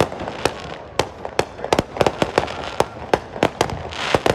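Many fireworks going off at once: a rapid, irregular string of sharp bangs and cracks, with a hissing crackle building near the end.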